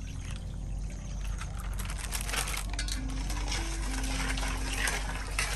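Coconut cream splashing and dripping into a ceramic bowl as it is squeezed out of a cloth bag, with light clinks against the bowl. It gets louder from about two seconds in.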